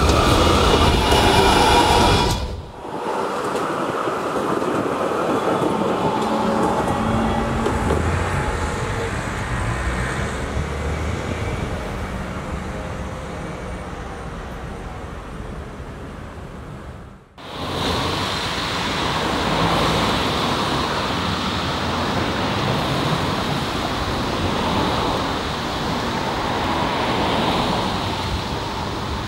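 A low-floor tram running past close by on its rails, cut off after about two and a half seconds. Then steady noise of more distant trams and street traffic.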